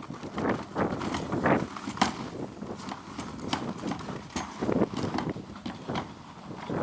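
A series of irregular knocks and clicks, with a few fuller, longer sounds among them.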